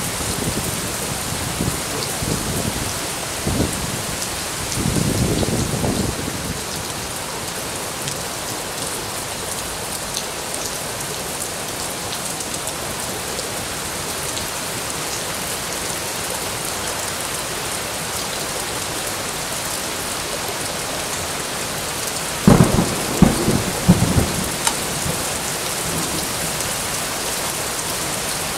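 Heavy downpour of monsoon rain hissing steadily and splashing on leaves and wet pavement. Low rumbles of thunder sound in the first six seconds, and a loud, close clap of thunder in several sharp cracks comes about 22 seconds in.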